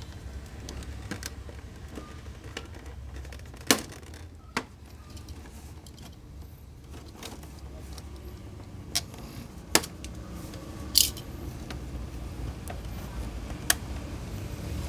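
Handling noise from a clear plastic blister tray and an action figure being worked free of its ties: a few scattered sharp clicks and a brief plastic crinkle about 11 seconds in, over a low steady hum.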